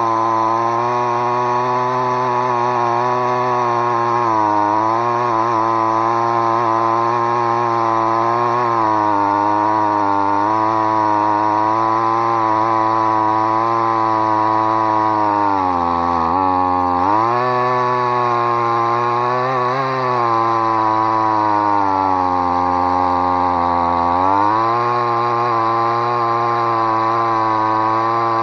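Stihl MS 181 C two-stroke chainsaw running at high revs while cutting through a thick tree trunk. Its pitch sags and recovers several times as the chain loads up in the wood. The owner finds the saw short on power.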